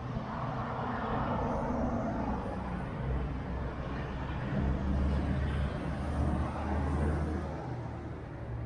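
Motor vehicles driving past on a street, with a deep engine rumble swelling twice in the second half.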